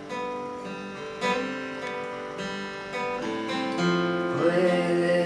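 Acoustic guitar strummed chords in an instrumental passage of a live song, a new chord ringing out about every second.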